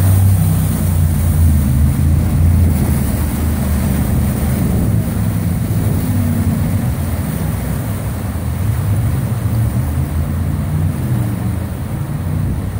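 Jet boat engine running with a low, steady drone that slowly fades as the boat moves away, over the rush of river rapids.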